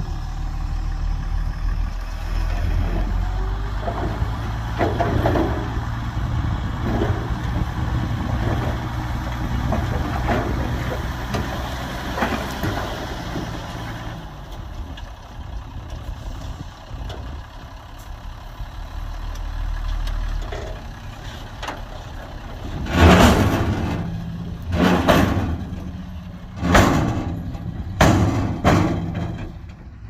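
Heavy diesel engines of a dump truck and bulldozer running steadily at work. In the last few seconds several short, loud bursts of noise cut in over the engine.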